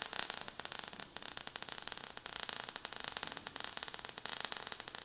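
Crackling, static-like noise made of many rapid, irregular clicks over a steady hiss.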